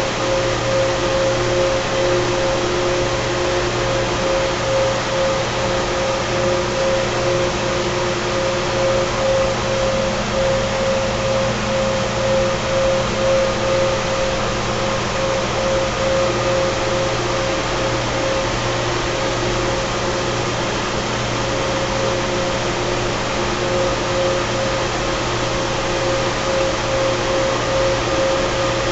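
Carrier 30HX screw-compressor water chiller running steadily: a loud, even mechanical hum with several constant tones on top.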